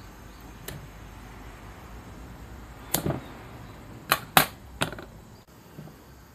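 Scissors snipping through the glued-on sole piece of a bowling shoe: a few sharp snips, the loudest two in quick succession about four seconds in.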